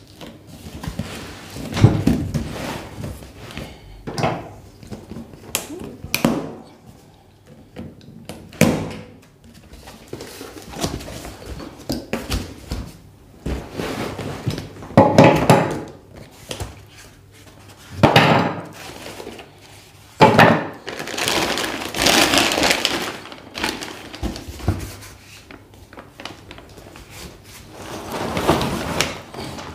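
Cardboard box being opened and unpacked: irregular scraping and rustling of cardboard and plastic wrapping, with occasional thunks as the flaps and packing insert are handled.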